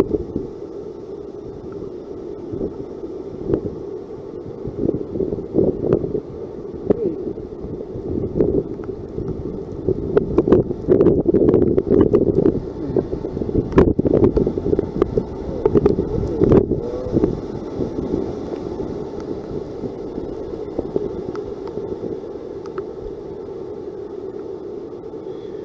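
Hurricane wind gusting and buffeting the microphone as a rough, rising-and-falling rumble, with a couple of sharp clicks midway.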